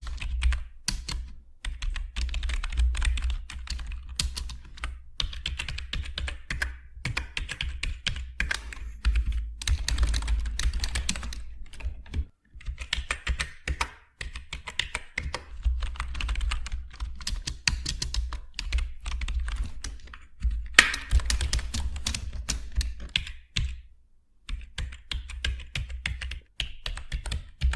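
Mechanical keyboard typed on in fast, continuous runs of key clicks, with short breaks about twelve seconds in and again near twenty-four seconds.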